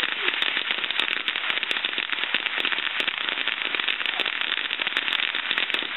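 Ground fountain firework spraying sparks: a steady, dense hiss with many sharp crackling pops scattered through it.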